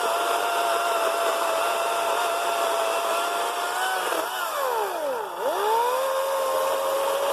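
EGO 14-inch 56-volt battery chainsaw running with a steady electric whine. About four seconds in, its pitch dives sharply and then climbs back within about a second, the motor bogging down and recovering.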